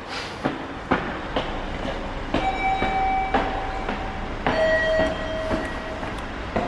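Footsteps on a hard stone floor at a steady walking pace, about two steps a second. About two and a half seconds in, a steady electronic tone sounds for about two seconds, then a lower one for nearly two seconds more.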